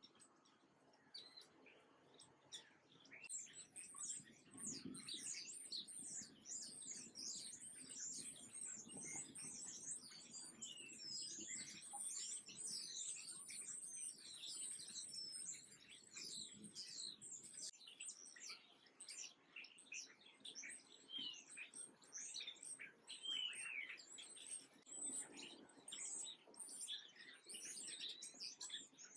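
A flock of small songbirds chirping busily, many short, high calls overlapping. The chatter is sparse at first and grows dense after about three seconds.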